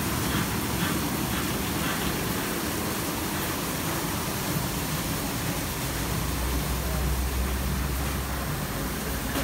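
Karcher CBC rollover car wash in its brush wash: rotating foam brushes sweeping a car's body under running water, a steady rushing wash sound. A rhythmic patter over the first two seconds, and a low hum joins from about six seconds in until about eight and a half.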